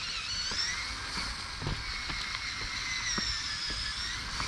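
Electric drive of a motorized LEGO Technic Ford Bronco, two LEGO L motors and their gearing, whining high as the model drives, the pitch rising and falling with speed, with scattered light clicks from the wheels on rough asphalt.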